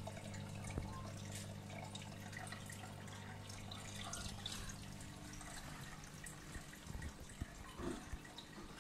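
Water trickling and dripping in a home marine aquarium's sump, with a low steady hum underneath.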